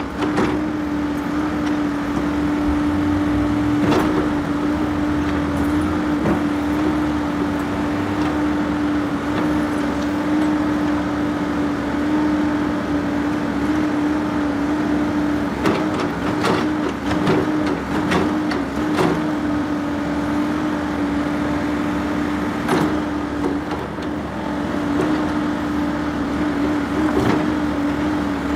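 Heavy construction machine's diesel engine running steadily with a constant hum, with occasional sharp metal knocks and clanks.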